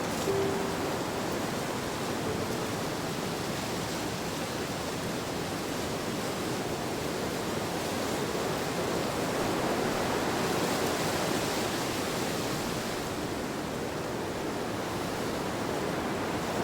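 Steady rushing nature ambience, an even hiss without distinct events, swelling slightly about ten seconds in.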